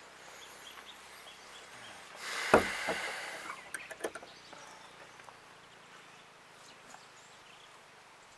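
A brief rustling scrape with one sharp knock in it, a little over two seconds in, followed by a few light clicks, over faint outdoor background.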